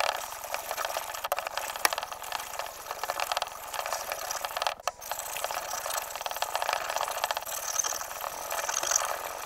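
Steel sword blade scraping along a whetstone in repeated sharpening strokes, a gritty rasping that breaks off briefly about halfway through.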